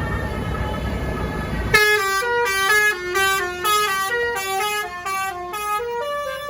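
A bus's multi-tone telolet (basuri) horn playing a quick melody of short stepped notes that starts about two seconds in, ending on a held note near the end. Before it comes a low rumble of engine and traffic.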